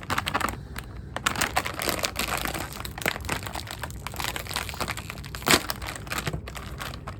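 Snack packet crinkling and crackling as it is handled and opened, with many irregular sharp crackles and one louder crack about five and a half seconds in.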